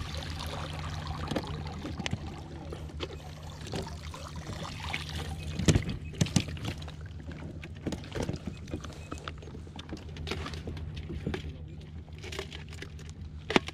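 Water sloshing and lapping against a fishing kayak's hull, with a few sharp knocks and clatters on the boat about six and eight seconds in and again near the end, over a steady low hum.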